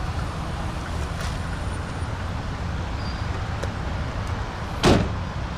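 2006 Mazda 6 engine idling steadily, with a single loud thump near the end.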